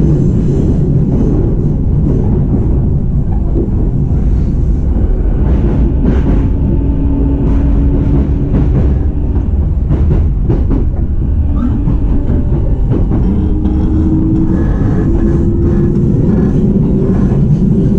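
Running noise heard inside a JR East E233-series electric train's motor car: a steady, loud rumble of steel wheels on rail with scattered clicks. A low humming tone comes and goes, rising slightly in pitch for a couple of seconds past the middle.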